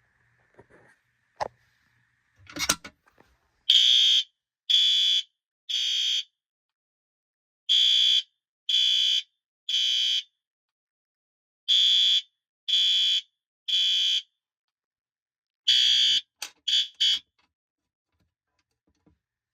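A few clicks and a clack, then a high-pitched fire alarm horn sounds in the temporal-three evacuation pattern. It gives three half-second blasts, a pause, and repeats this three times. It starts a fourth round, breaks off into a few short chirps and stops.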